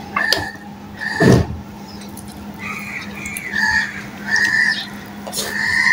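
Close-up eating sounds from hand-eating rice and fish: chewing and a few soft thumps, the loudest about a second in. Short high chirping calls repeat in the background, over a steady low hum.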